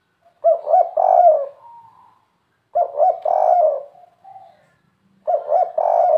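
Spotted dove (derkuku) cooing its 'kuk 3' song, three cooing phrases about two and a half seconds apart, the last starting near the end.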